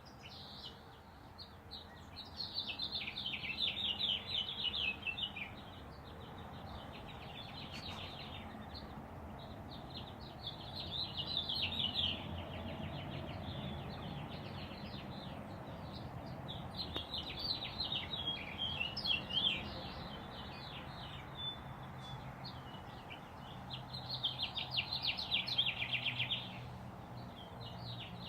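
Songbirds singing at dawn. Four loud bursts of rapid, repeated notes, each lasting two to three seconds and spaced several seconds apart, with fainter chirping between them over a low, steady background rumble.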